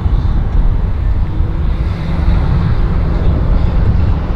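Twin outboard motors on a cabin boat running steadily under power as the boat is driven up onto its trailer, mostly a low rumble.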